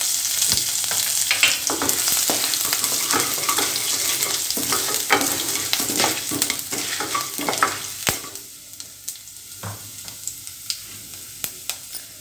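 Mustard seeds, urad dal and chana dal with ginger sizzling and popping in hot oil, stirred and scraped round a metal pot with a wooden spoon. About eight seconds in the sizzle drops off, leaving scattered pops.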